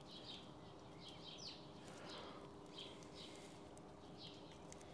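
Faint small-bird chirps: short, slightly falling calls repeating irregularly, a few each second, over a low steady hum.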